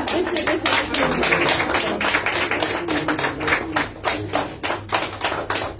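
Small audience applauding, thinning out into separate claps near the end.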